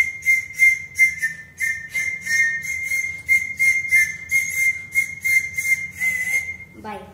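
Toy flute blown by a child: a high, breathy whistle held mostly on one note, dipping a few times to a slightly lower note, in short puffs about three a second.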